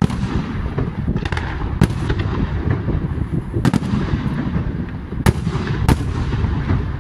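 Aerial fireworks shells bursting one after another: a steady low rumble of booms with sharp bangs standing out at irregular moments, the sharpest about two, four, five and six seconds in, and a fizzing crackle after some bursts.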